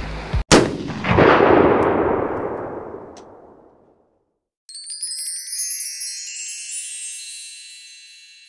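Edited-in sound effects: a sharp hit about half a second in, followed by a loud booming swell that fades over about three seconds; then, after a brief silence, a high shimmering chime effect that sparkles and slowly fades.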